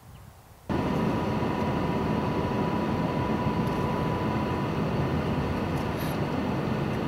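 A car driving on a paved road: steady engine and tyre noise that starts abruptly under a second in, with a thin steady whine that stops about halfway through.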